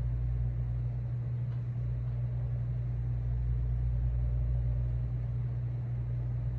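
A steady low hum runs throughout, with no change in level.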